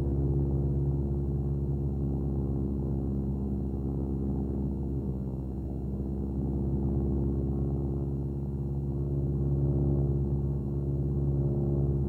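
A steady low drone of several held tones layered together, unchanging throughout.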